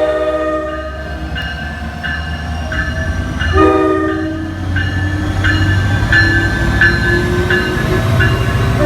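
NJ Transit PL42AC diesel locomotive sounding its horn twice, a blast ending about a second in and a shorter one about three and a half seconds in, the signal for a departing train. Its EMD 16-710 engine rumbles low throughout, and a bell dings in a steady rhythm under the horn.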